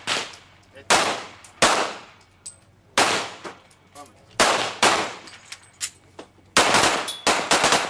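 Semi-automatic pistols fired by several shooters on a firing line: about ten sharp shots at uneven spacing, each with a short echoing tail, coming faster and closer together near the end.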